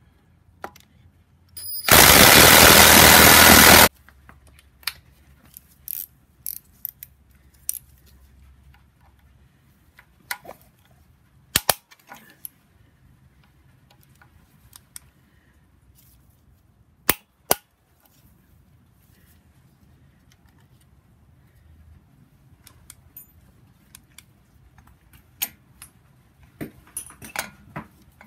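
A cordless power tool runs hard for about two seconds, undoing the bolts that hold the drive sprocket on an N54 engine's vacuum pump and high-pressure fuel pump. After that come scattered sharp metallic clicks and clinks of bolts and tools being handled, with a cluster near the end.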